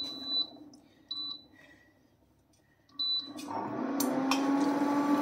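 A kitchen appliance's buttons beep three times, short and high, and then the appliance starts up about three and a half seconds in: a steady hum whose motor rises in pitch as it comes up to speed, with a couple of clicks.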